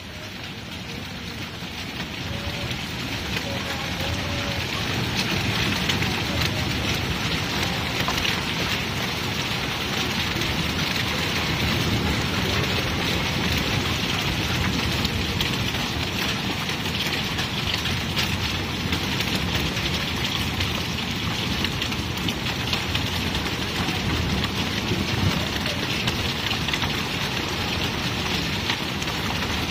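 Heavy rain mixed with hail falling on a yard and patio: a steady hiss with fine pattering impacts. It grows louder over the first few seconds, then holds steady.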